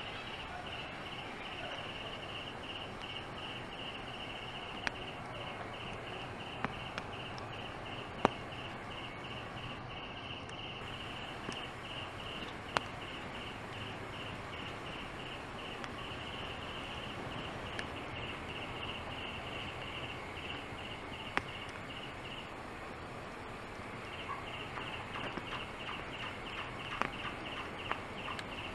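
Rhythmic insect chirping, a steady high pulsing at about five pulses a second, that breaks off briefly about three quarters of the way through and then starts again. Occasional sharp clicks and snaps sound over it.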